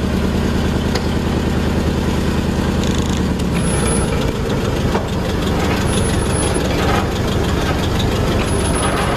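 Engine of a 1959 Chevy Viking tow truck running steadily under load as it pulls a shipping container; its note shifts about three and a half seconds in. Three brief high squeaks come a couple of seconds apart.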